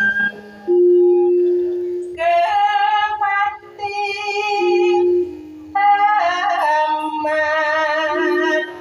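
A Javanese pesinden, the female singer of a gamelan ensemble, singing solo in long, wavering held notes in three phrases, with steadier lower held notes beneath.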